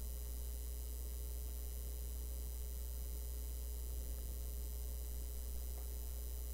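Steady low electrical hum with a faint high whine over it, unchanging throughout: mains hum picked up by the recording setup.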